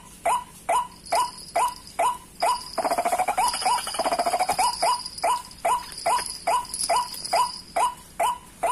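White-breasted waterhen (ruak-ruak) calling: a short rising note repeated two to three times a second, breaking into a quick rattling run of calls for a couple of seconds in the middle. A steady high whine runs behind the calls.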